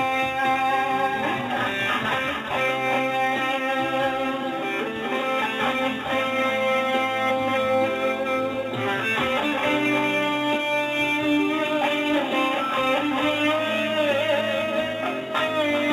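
Guitar music: a melody of held, plucked notes over steady lower notes, with one note wavering in pitch near the end.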